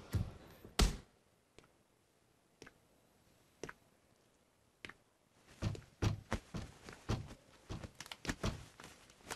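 A series of irregular knocks and thuds: two strong ones in the first second, a few scattered taps, then a quicker uneven run of knocks through the second half.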